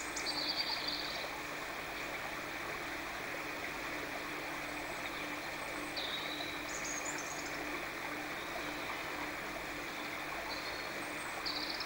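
Steady rushing of running water, like a small stream, over a faint low hum. A few brief high chirps come through right at the start, about six seconds in, and near the end.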